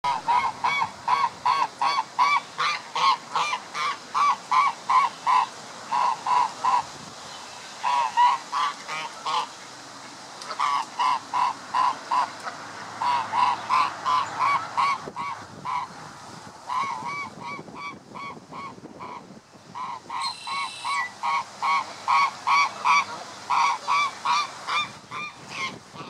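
Canada geese calling: a rapid series of short, pitched calls, about four a second, in runs broken by brief pauses.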